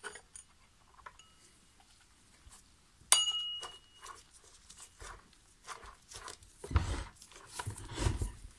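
Metal clinks and scrapes as the steel clutch drum and sprocket of a Stihl MS 391 chainsaw are fitted back onto the crankshaft. There is one sharp clink about three seconds in that rings briefly, and duller thuds and rubbing from handling the saw near the end.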